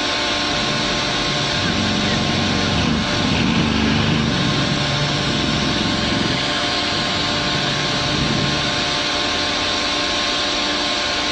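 Diesel engines of a mobile crane and crawler bulldozer running steadily as the crane holds the dozer on its hook, a constant mechanical hum with a low swell about two to five seconds in.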